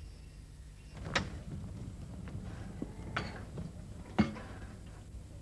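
Three sharp knocks or thumps, about a second in, a little after three seconds and just after four seconds, the last the loudest, over a low steady hum.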